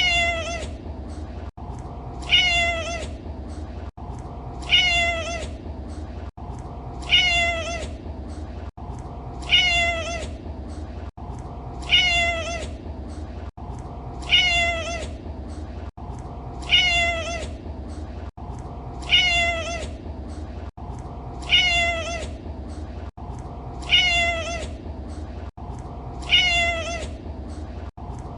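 Domestic cat meowing: the same short meow, falling in pitch, repeats at even spacing about every two and a half seconds, like a loop, over a low steady hum.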